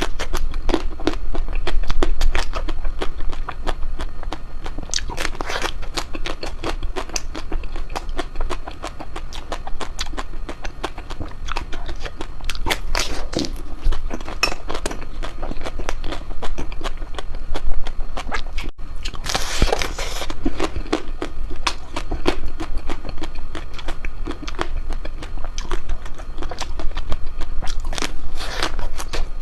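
Ice cream being bitten and chewed close to the microphone: a steady run of crunchy bites, crackles and wet mouth clicks, with a longer, harsher crunch about two-thirds of the way through. A low hum runs underneath.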